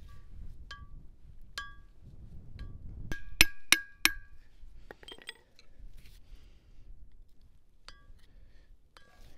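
Hammer driving a steel punch against the edge of the old rear hub oil seal, creasing it so it can be pried out: a few light, ringing metal clinks, then four harder blows in quick succession about three seconds in, and more light clinks near the end.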